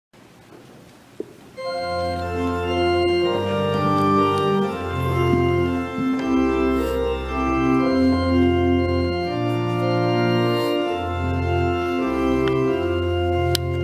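Church organ playing slow, sustained chords over a stepping bass line, coming in about two seconds in after a brief faint stretch and a single click.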